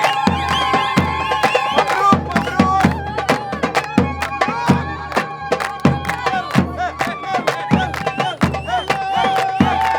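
Lebanese wedding zaffe music: drums beating a fast, driving rhythm of sharp strikes and deep thumps under a held, wavering melody line.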